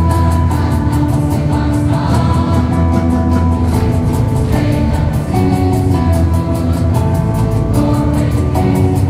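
A large mixed choir of high school students singing in chorus over a pop-style accompaniment with a steady beat and heavy bass.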